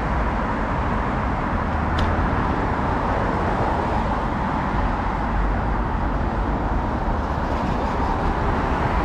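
Steady road traffic noise from cars passing on a multi-lane city street, with a short click about two seconds in.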